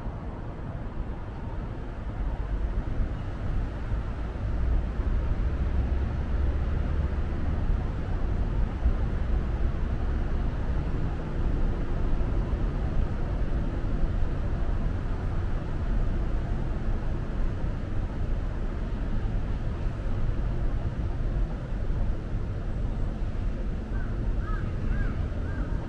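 Low, steady city rumble of traffic, growing louder over the first few seconds and then holding. Near the end comes a quick run of about six short calls.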